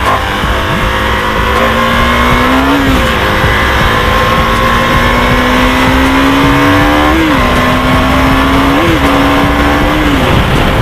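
KTM Duke 390's single-cylinder engine under way, pulling through the gears: its pitch climbs slowly and drops sharply at each shift, about three times, then falls away near the end, over a steady rush of wind.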